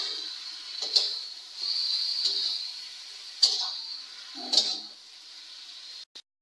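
Marinated meat sizzling in hot mustard oil with onions in a steel wok, just after going into the pan. A metal spatula knocks and scrapes against the wok four times as it is stirred.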